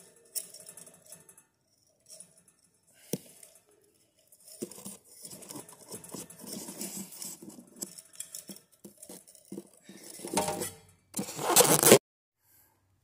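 Clinks and knocks of metal ceiling-fan parts, the down rod and canopy, being handled, mixed with rubbing and rustling close to the microphone. The rubbing is loudest near the end and then stops abruptly.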